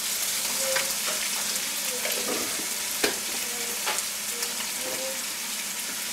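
Shredded vegetables sizzling in a hot nonstick wok as a wooden spatula stirs and scrapes them. A few sharp knocks of the spatula on the pan stand out, the loudest about three seconds in.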